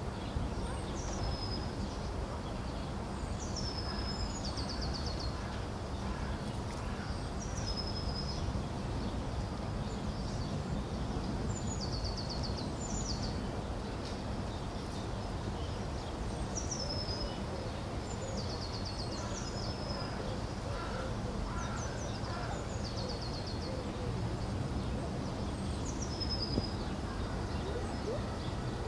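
A small songbird singing short high phrases again and again, each a falling whistle that runs into a quick trill, over a steady low background rumble.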